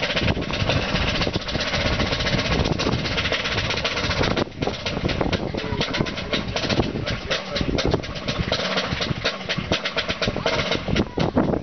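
Wind buffeting the camera microphone: a steady rushing rumble that swells and dips in gusts.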